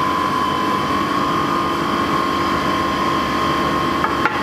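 Steady machine hum with a constant high whine running at an even level, with a couple of short clicks about four seconds in.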